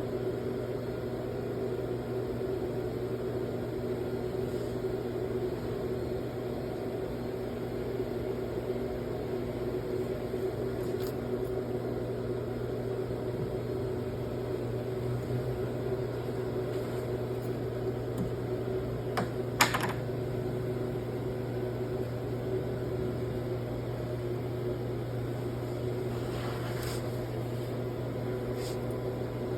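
Steady hum of workshop machinery running, with several constant tones, as from a CNC router's spindle and extraction. A short clatter sounds about two-thirds of the way through.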